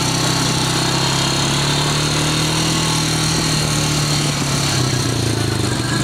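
ATV engine running steadily as the quad rides along a trail, its low hum holding a near-constant pitch with a slight rise and dip in the middle.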